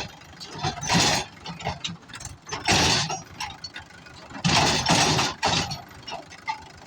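Machinery noise: about five loud, noisy bursts of roughly half a second each, with quieter stretches between.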